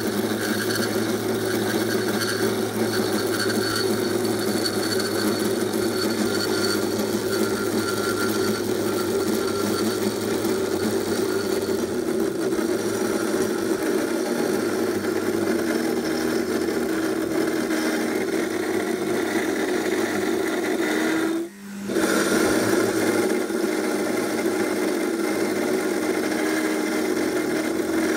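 Cold saw (circular metal-cutting chop saw) running steadily with a constant hum, its blade cutting through square metal tubing. The sound drops out for a moment about three-quarters of the way through, then resumes unchanged.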